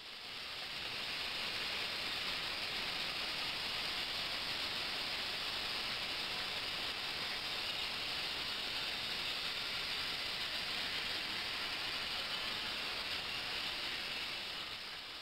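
Ultrasonic bath running: a steady, fairly high hiss of water under cavitation in the tank, with liquid circulating through hoses. It fades in over the first couple of seconds and fades out at the end.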